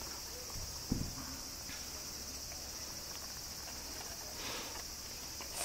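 Insects trilling steadily in a high, unbroken drone, with a single soft thump about a second in.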